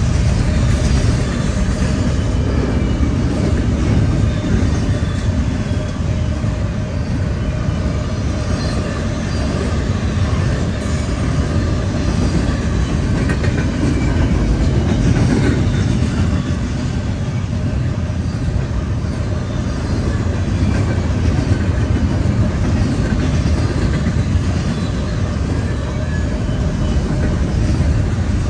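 Intermodal freight train cars rolling past: a steady, loud rumble of steel wheels on rail with light, wavering wheel squeal.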